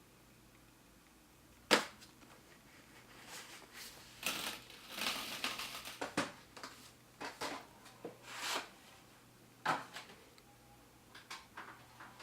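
Handling noises: a sharp click, then several seconds of irregular rustling and scraping, a second sharp click, and a few small clicks near the end.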